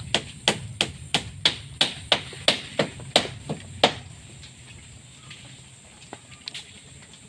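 A steady series of sharp knocks, about three a second, stopping about four seconds in; after that only a few faint clicks.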